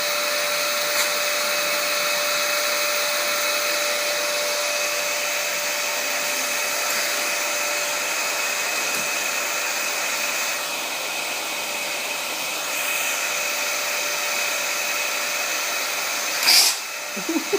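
Vacuum cleaner motor running steadily with a whine and airy hiss; its sound shifts for a couple of seconds past the middle, and a loud, short burst of noise comes near the end.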